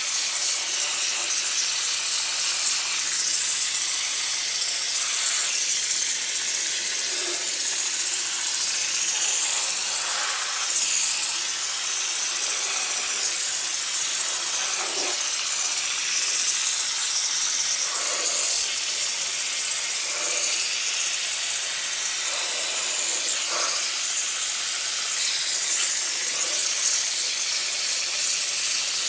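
Harbor Freight air-powered engine cleaning gun spraying degreaser onto a bare small-block 350 engine block: a steady, loud hiss of compressed air and spray, with a few brief changes in tone as the wand moves.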